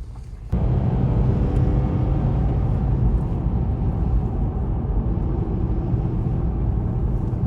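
Lexus being driven, heard from inside the cabin: steady engine and road rumble, starting abruptly about half a second in.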